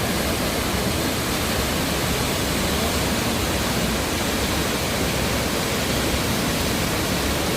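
Waterfall: water pouring down in a steady, even rush of noise.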